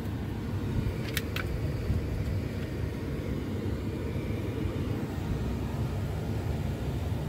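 Two quick clicks of a Ford F-150's dash headlight switch being turned, about a second in, over a steady low vehicle rumble.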